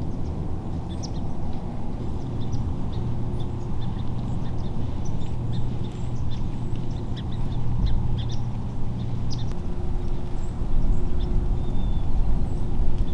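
A steady low rumble with a constant hum runs underneath, growing louder in the last few seconds. Many short, high chirps of small birds are scattered over it.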